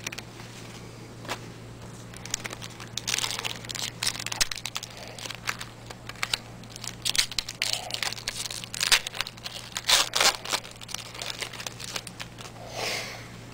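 Trading card pack wrappers crinkling and tearing as hockey card packs are ripped open and the cards handled, in irregular rustles and snaps over a faint steady hum.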